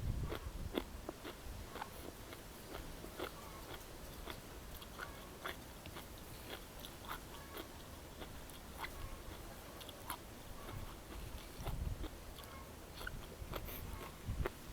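A person chewing and crunching food close to the microphone, with scattered small clicks throughout.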